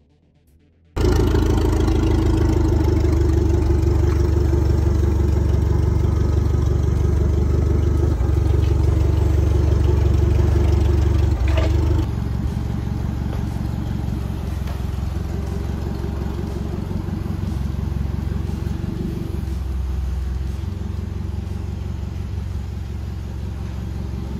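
A vehicle engine running steadily with road noise, starting abruptly about a second in. About halfway through it cuts to a quieter steady engine hum: a forklift running as it carries an engine across the shop.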